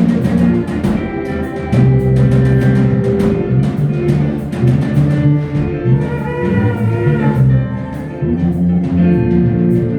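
Live church band playing an upbeat praise-break groove, with electric guitar, bass guitar and drum kit, the drum hits coming in a steady driving beat.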